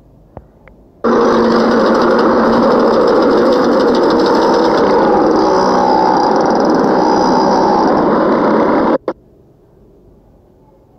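Loud, steady truck engine and road noise from a phone video of traffic at night. It starts abruptly about a second in and cuts off sharply about eight seconds later, after two brief clicks.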